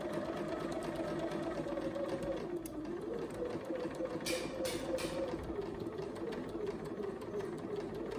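Sewing machine running steadily while stitching a curved seam in a quilt block, its motor whine dipping briefly about three seconds in. Three short scratchy noises come around the middle.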